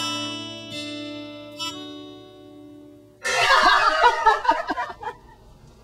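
A last acoustic guitar chord rings out and fades. About three seconds in, a burst of loud laughter starts and dies down after a couple of seconds.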